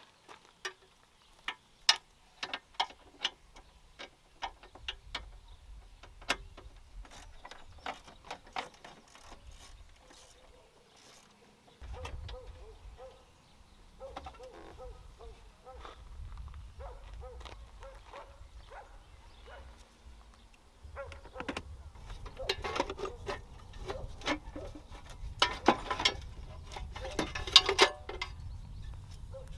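Scattered clicks and knocks of hand tools and loose parts as screws are undone and pieces are lifted out of a car's engine bay. A low rumble joins partway through, and the loudest knocks come in a cluster near the end.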